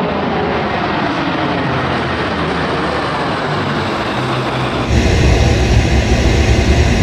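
Fighter jet engine noise as the jet passes, its pitch slowly falling. About five seconds in it changes to a louder, deep rumble.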